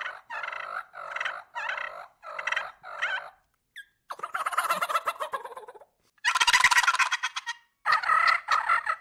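Hand-held turkey calls imitating a gobbler. First comes a run of about six evenly spaced notes, then three rattling gobbles, the loudest a little past six seconds in.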